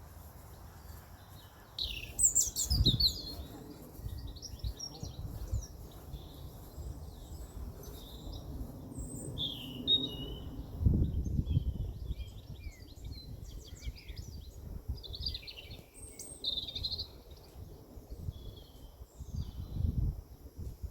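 Several songbirds singing and chirping, with overlapping quick trills and tweets throughout. Beneath them is a low background rumble that swells now and then.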